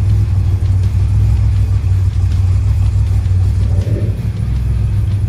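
DeLorean DMC-12's cammed V6 engine idling steadily with a deep, choppy low rumble.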